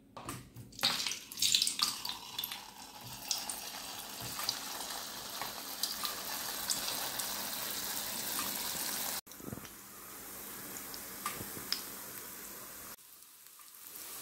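Rice-flour dough balls deep-frying in hot oil in an iron kadai: a steady sizzle with small pops. It breaks off abruptly twice and then resumes.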